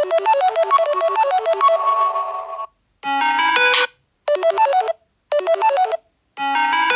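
Samsung Galaxy A20e ringtone previews playing from the phone's speaker: a looping bell-like melody cuts off near three seconds in. Three short tones follow with brief silences between them, the last two alike. A new, fuller ringtone starts near the end.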